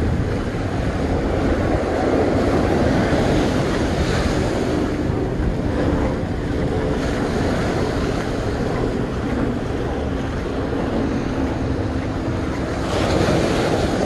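Small ocean surf washing up on a sandy beach, with wind buffeting the microphone. A louder wash of surf comes near the end.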